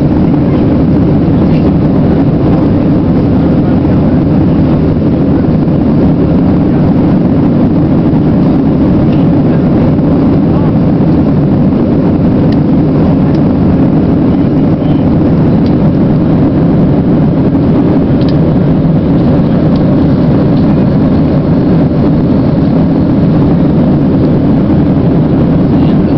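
Loud, steady cabin noise inside a Boeing 737 airliner climbing out after takeoff: jet engine and rushing airflow as a deep, even rumble that does not change.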